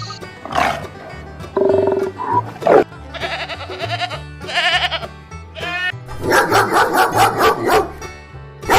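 Animal calls over background music: several wavering, bleat-like calls, then a quick run of about eight short repeated calls from about six seconds in, and a sharp click near the end.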